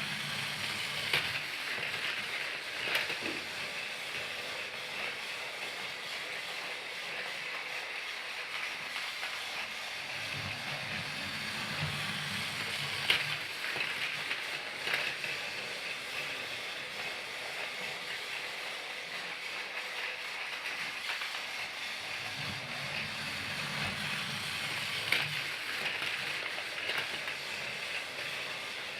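A battery-powered Thomas the Tank Engine toy train running steadily along its track, with a continuous whirring hiss and a few sharp clicks. A low hum swells and fades a few times.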